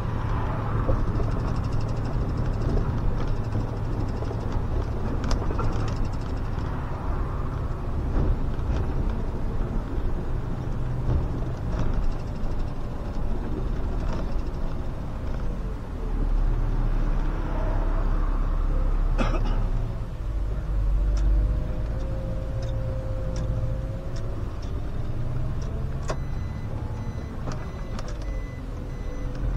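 SOR CN10.5 bus driving along, with a steady engine and drivetrain hum and road noise. In the second half a faint whine slowly rises and falls, and a couple of sharp clicks stand out.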